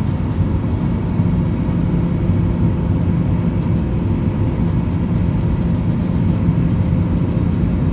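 Steady low rumble inside an airliner cabin during descent, made up of engine and airflow noise, with a low hum that comes in about a second in.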